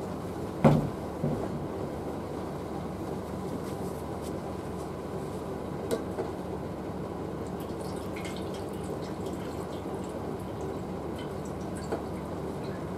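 Water poured from a small steel bowl into a larger metal bowl, trickling and dripping into it. A sharp knock about a second in is the loudest sound, with a smaller one just after.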